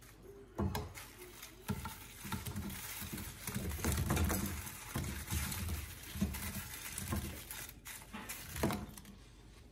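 Pieces of battered fried chicken tipped from a bowl into a frying pan of sauce, landing in a run of irregular soft thumps and patters.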